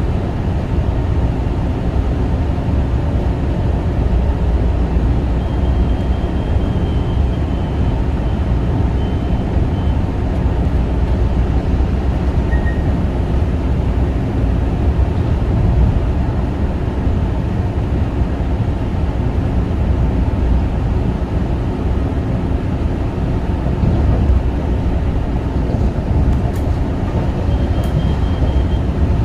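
Long Island Rail Road Kawasaki M9 electric train running along the track: a steady, heavy rumble of wheels on rail. A faint high-pitched tone comes in twice, once for a few seconds and once briefly near the end.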